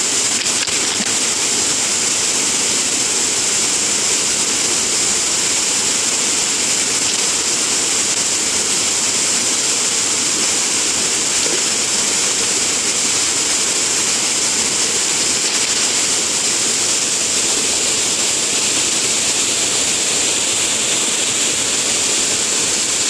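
Small waterfall pouring into a shallow pool: a loud, steady rush of falling water.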